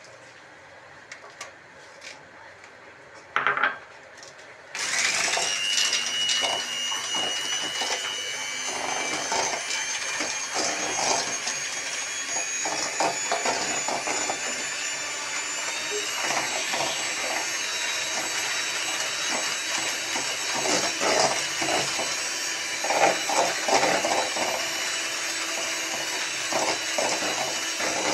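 Electric hand mixer switched on about five seconds in and running steadily, its beaters whisking eggs and sugar and rattling against a steel bowl. The mixture is being beaten until it turns pale.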